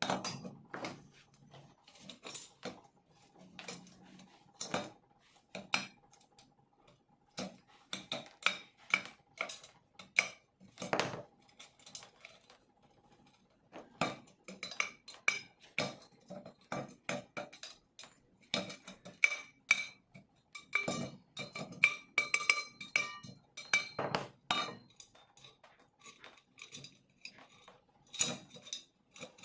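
Irregular metallic clinks and knocks from hand tools working on a scooter wheel rim, some strikes ringing briefly.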